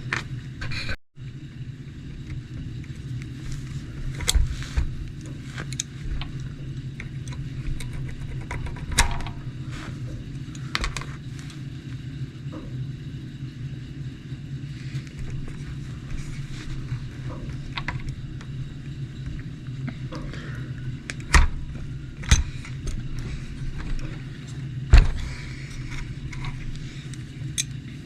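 Scattered clicks and taps of small plastic RC truck shock parts being handled and fitted, over a steady low hum.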